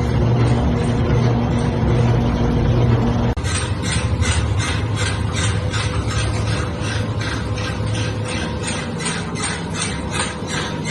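Noodle-making machinery running: a steady hum, then after a sudden change about three seconds in, an even, rhythmic clatter of about three strokes a second.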